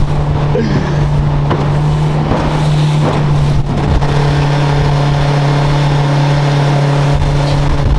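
Motorboat engine running steadily under way, a constant drone with water and wind noise beneath it.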